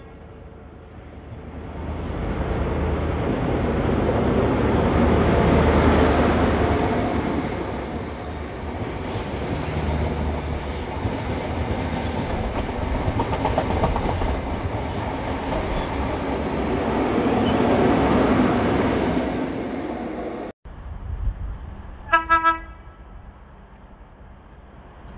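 High Speed Train with Class 43 diesel power cars passing at speed: engine and wheel-on-rail noise swell, peak and carry on as the coaches run by, with wheels clicking over rail joints. After an abrupt cut, a brief horn toot sounds in the distance near the end.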